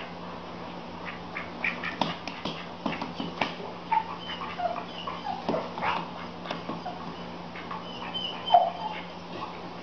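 A cat and a duck scuffling on a wooden floor: scattered taps and scrapes, with a string of short squeaky animal cries, the loudest about eight and a half seconds in.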